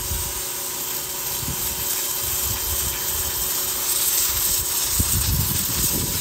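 1400 PSI pressure washer spraying a steady hissing jet of water onto a grimy bird bath, over the steady hum of its pump.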